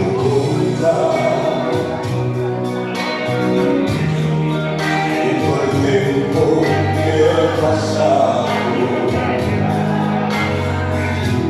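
Dance music with a singing voice over held bass notes and a steady beat.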